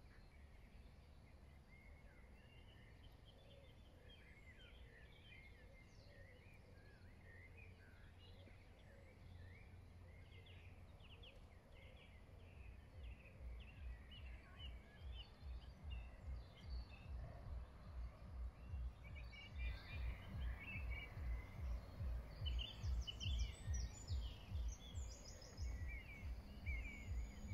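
Songbirds singing in short chirping phrases over a faint steady outdoor hiss. From about halfway a low, regular thumping about twice a second fades in and grows until it is the loudest sound.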